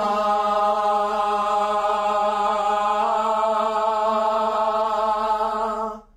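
Studio session singers holding one long note together at a single pitch, steady throughout, which cuts off sharply near the end.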